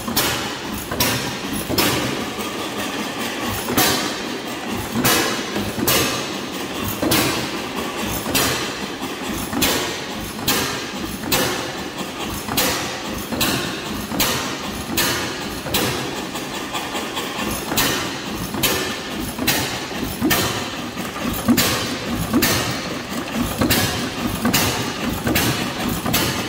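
Antique hit-and-miss gas engine running, firing with sharp exhaust bangs in a steady, even rhythm. It runs on a makeshift farmer-rigged ignition that sparks every time the trip lever trips, so it fires when it doesn't need to and runs, but not well.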